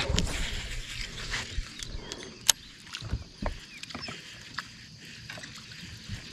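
A topwater popper being worked from a bass boat: small, irregular water splashes and short sharp clicks, the loudest click about two and a half seconds in.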